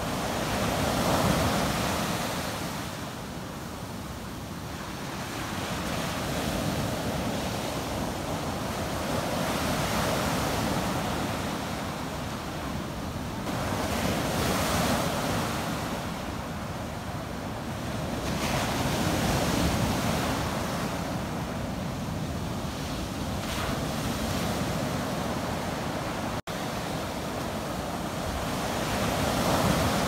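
Ocean surf breaking and washing up a sandy beach, the rush of the waves swelling and easing every few seconds. The sound cuts out for an instant about three-quarters of the way through.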